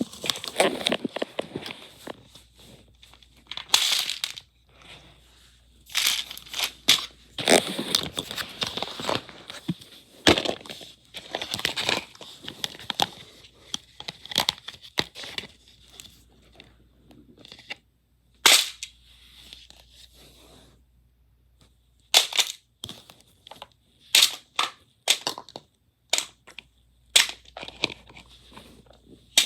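Wrappers and plastic shells crinkling, tearing and clicking in irregular short bursts with pauses, as surprise eggs are unwrapped and cracked open.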